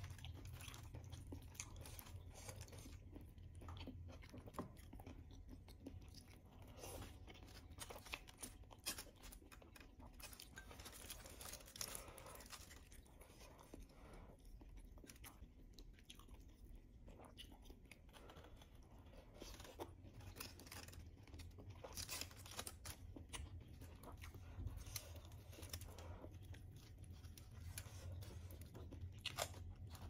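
Close-miked eating of baked whole chicken: meat torn apart by hand and chewed, heard as faint, scattered clicks and crunches over a low steady hum.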